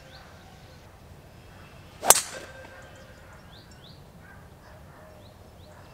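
Driver head striking a two-layer, Surlyn-covered Vice Drive golf ball off the tee: one sharp crack with a short ring, about two seconds in.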